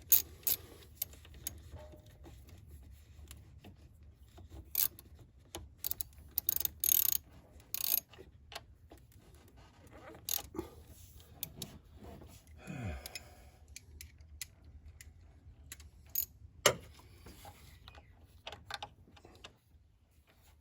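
Ratchet wrench clicking in a few quick strokes at the start as it runs down the ignition coil hold-down bolt, then scattered clicks and clatters of tool handling. A brief falling hum comes about two-thirds of the way through.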